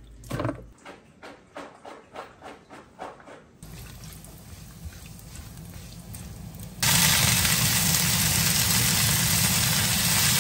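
Green beans stir-fried in a hot, oiled nonstick pan: a loud, steady sizzle that starts suddenly about two-thirds of the way in. Before it, a light clatter of raw cut beans handled in a plastic colander, then a faint sizzle of small dried shrimp frying in oil.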